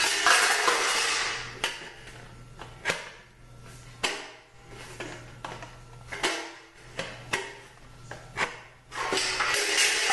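Hand aluminum cutters working through a sheet-aluminum garage door panel. A rasping scrape opens it, then comes a string of sharp metallic clicks and clanks about a second apart, then another rasping stretch near the end. The cutters are dull and struggle to bite.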